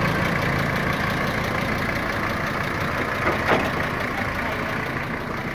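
Toyota Land Cruiser diesel engine idling steadily. The engine is described as running lumpy and blowing black and white smoke, a fault put down to its injection pump.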